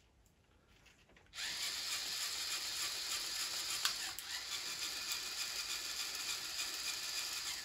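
Lego Technic XL motor driving the plastic gears and axles of an RC pickup, its wheels spinning free in the air; a steady whirring gear rattle that starts abruptly about a second and a half in and eases off near the end. The right wheel turns a little haltingly.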